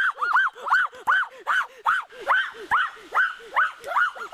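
Rapid, high-pitched yelping cries from an animal, short rising-and-falling calls about four or five a second, with a lower second voice overlapping them.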